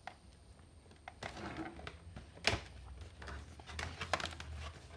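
A plastic toy playset being worked out of its cardboard box: rustling and scraping of cardboard and plastic packaging, with a few sharp clicks and knocks, the loudest about two and a half seconds in.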